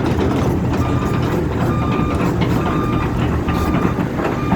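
Crane engine running steadily under a heavy low drone, with a warning beeper sounding about once a second.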